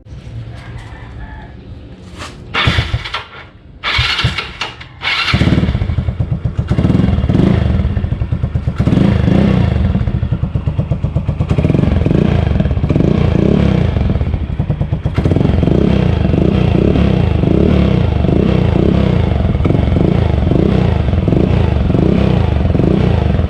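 Yamaha Mio Sporty scooter's single-cylinder four-stroke engine breathing through a Chicken Pipe V4 aftermarket exhaust with its silencer insert fitted. After two short bursts it catches about five seconds in, then runs with the revs rising and falling, fairly quiet with the silencer in.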